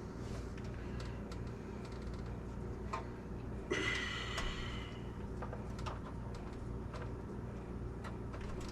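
Desktop computer's fans running with a steady low hum, the machine powered but not booting into video. Scattered small clicks are heard, with a brief scraping rustle about four seconds in, from handling of the computer and its cables.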